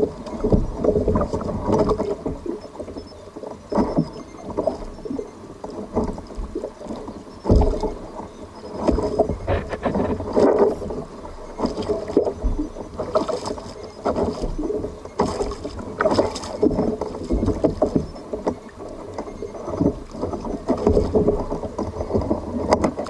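Water sloshing and splashing irregularly against a fishing kayak, with scattered knocks on the hull.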